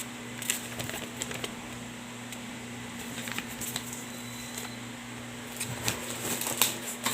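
Soft scattered clicks and rustles of a parcel's packaging and paper being handled, over a steady low hum.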